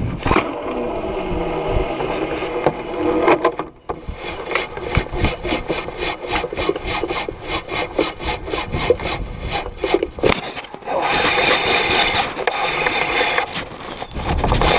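Shimano spinning reel being cranked to retrieve line, picked up close through the rod-mounted camera: a steady mechanical grinding with a rapid run of ticks from the turning gears and rotor. It stops briefly about four seconds in and gets louder again from about ten seconds in.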